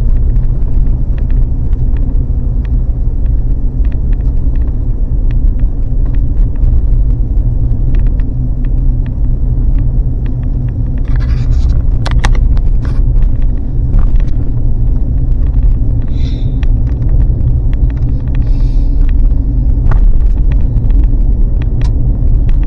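Vehicle driving on a rough back road: a loud, steady low rumble with scattered clicks, knocks and brief rattles.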